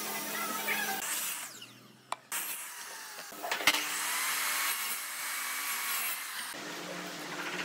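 Electric miter saw cutting through a small block of pine: a sharp crack about halfway in, then about three seconds of the blade whining through the wood before it eases off. Lower, steady workshop noise in the first second.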